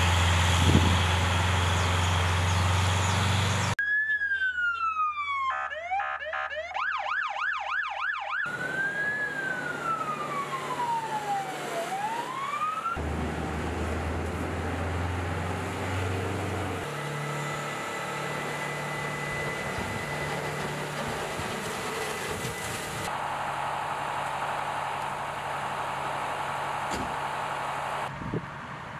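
Military fire truck's siren sounding: first a falling wail, then a fast yelp, then a slow wail that falls and rises again. Before and after the siren the truck's engine runs steadily, and later there is a steady hiss as its turret sprays water.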